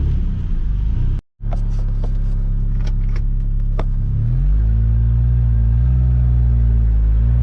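Old Ford Ranger pickup's fuel-injected engine running evenly, after a stuck-open injector was freed. After a brief cut come a few sharp clicks and knocks, then about four seconds in the engine note rises and holds steady as the truck gets under way.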